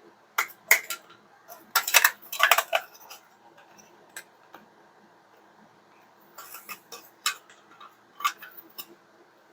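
Hard plastic toy-playset pieces clicking and knocking together as they are pushed and slid into place during assembly. A quick run of clicks comes about two seconds in, and more come from about six and a half seconds in.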